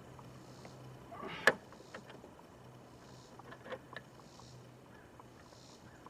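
Hand work on engine-bay parts: one sharp snap about one and a half seconds in, then a few lighter clicks and knocks, over a faint steady hum.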